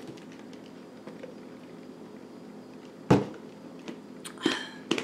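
Faint steady room hum, broken about three seconds in by a single sudden thump, followed near the end by a short breathy sound.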